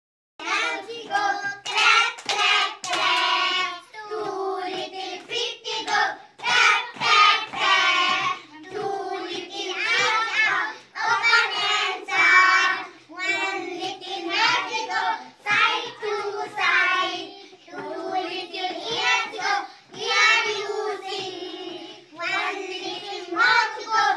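A group of young schoolchildren singing a song together in chorus, starting about half a second in.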